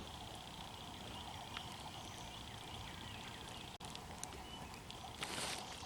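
Quiet outdoor ambience with a steady, high-pitched, rapidly pulsing trill, likely from a bird or insect, over a low background hiss, with scattered faint clicks. A brief rustling burst comes near the end.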